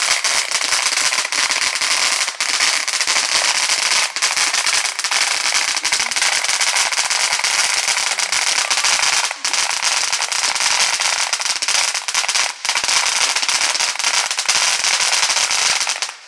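Ground fountain firework spraying sparks with a loud, dense crackle and hiss that drops off sharply near the end.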